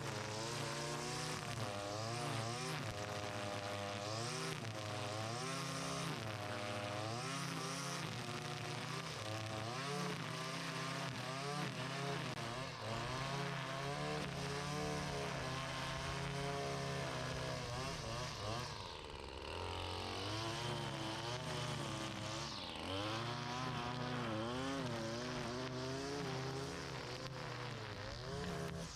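Small gas engine of lawn equipment running, its pitch wavering up and down about once a second, with a short dip in level about twenty seconds in.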